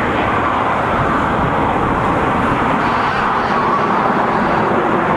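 Jet noise from a formation of about ten Aermacchi MB-339 jet trainers flying overhead: a steady, even rushing roar.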